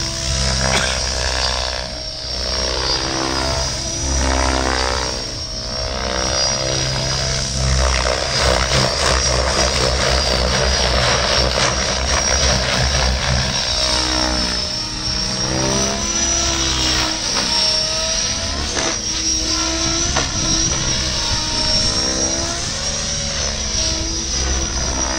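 Logo 700 radio-controlled helicopter flying aerobatics: rotor blades and drive whine rising and falling in pitch again and again as it swoops and changes direction.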